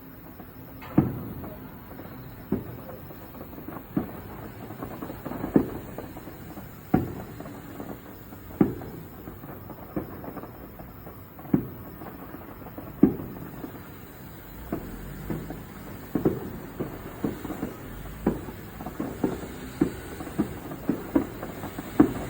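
Aerial firework shells bursting one after another: a sharp boom about every second and a half, then coming faster and overlapping in the last several seconds.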